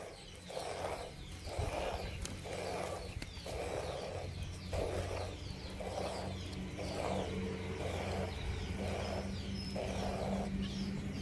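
A cow being milked by hand: short squirts of first-day milk (colostrum) hitting a container in a steady rhythm, about one every two-thirds of a second. A steady low hum runs underneath.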